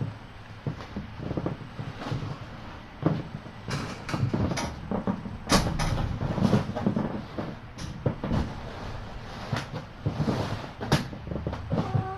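Irregular knocks, clicks and rustling, with no steady rhythm; the loudest knocks come about four to six seconds in and again near eleven seconds.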